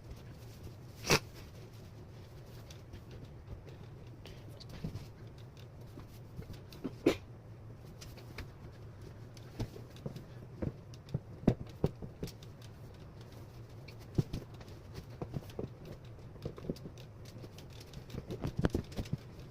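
Scattered clicks, taps and rustles of someone handling and putting on clothes, with a sharper knock about a second in and another about seven seconds in, and quicker small taps in the second half. A faint low hum runs underneath.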